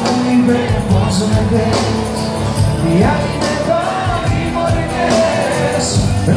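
Live band playing a Greek popular song, with a male singer's melodic line gliding over steady bass and regular percussion.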